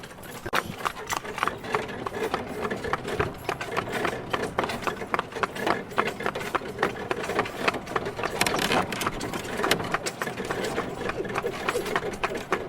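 A horse walking, its hooves clopping in an uneven run of several strikes a second.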